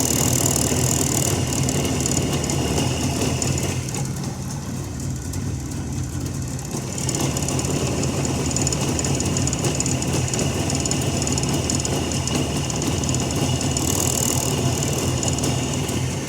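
Jawa motorcycle's two-stroke engine idling with a metallic rattle from its carburetor throttle slide: the slide is worn and knocks in its bore. The rattle fades for a few seconds about a quarter of the way in, then returns.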